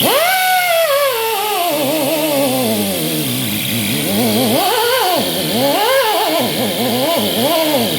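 Angle grinder whining on welded bumper steel. Its pitch drops over the first few seconds, then sags and rises about once a second as it is pressed into the metal and eased off.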